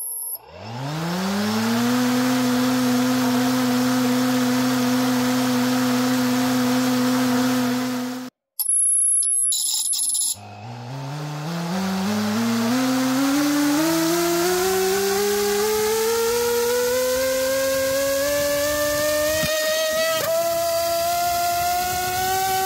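930KV RC outrunner brushless motor with a two-blade propeller spinning up and holding a steady whine. After a brief break and a couple of seconds of steady high tones, it spins up again on about 74 V. Its whine then climbs steadily in pitch as the throttle duty and load rise.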